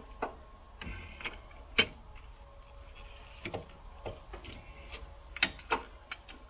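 Steel three-point hitch parts clinking and knocking as the lower-link cross shaft and its collars are worked into the holes in a Kubota BX25D's rear frame: several sharp metal clicks at irregular intervals, the loudest about two seconds in.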